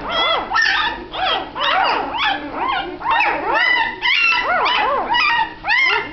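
A litter of newborn puppies squealing and whimpering, with many short high cries that rise and fall in pitch, overlapping at several a second.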